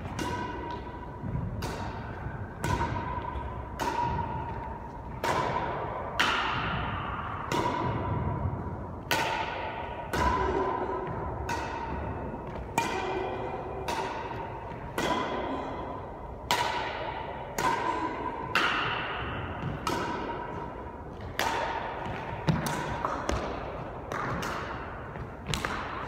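Badminton racquets striking a shuttlecock in a long rally: sharp hits about once a second, echoing off the bare walls of an enclosed court.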